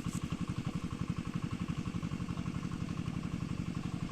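A small engine running steadily at idle, with a fast, even chugging.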